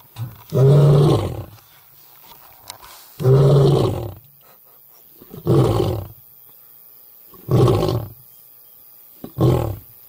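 Lion roaring: five low calls about two seconds apart, the later ones fainter and shorter. These are the grunts that close a lion's roaring bout.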